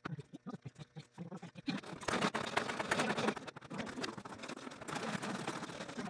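Fast-forwarded handling of plastic Christmas ornaments and tinsel garland: dense rustling and crackling that grows louder about two seconds in, with short garbled blips before that.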